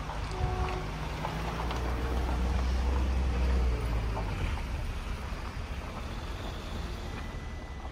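Suzuki Jimny driving slowly, heard from inside the cabin: a steady low engine and road rumble that grows louder over the first few seconds and then eases off.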